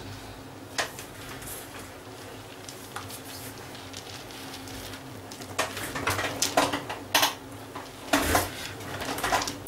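Scattered small clicks and clinks with cloth rustling as a person sits down and settles into a cloth-draped armchair, a few at first and a quick cluster in the second half, over a steady low hum.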